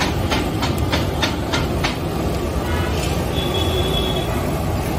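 Chicken lollipops deep-frying in a large kadhai of oil: a steady, loud sizzle and bubbling over a low rumble. Over the first two seconds, sharp regular clicks come about three times a second.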